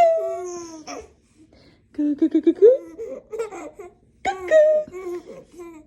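A baby laughing in several bouts of quick, repeated laughs, the first a long drawn-out sound that falls in pitch.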